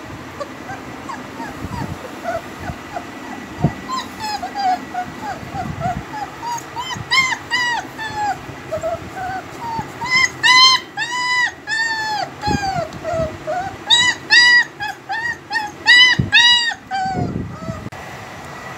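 German Shepherd puppies whimpering and yipping: a fast run of short, high, arching cries that grows louder from about halfway through and stops near the end, with a few soft knocks among them.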